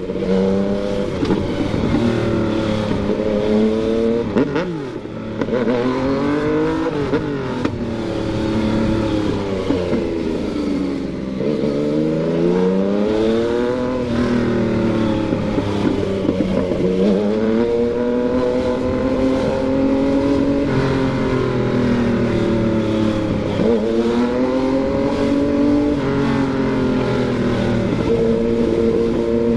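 Yamaha MT-09's three-cylinder engine under way, repeatedly revving up through the gears and easing off, its pitch climbing and then falling again every few seconds.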